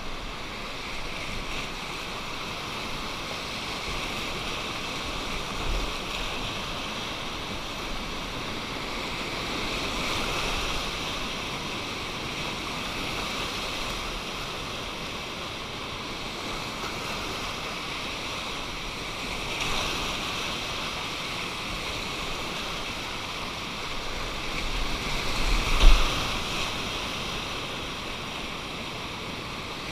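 Rushing river whitewater, a steady hiss of moving water, with a sharp thump about 26 seconds in and a few softer bumps earlier.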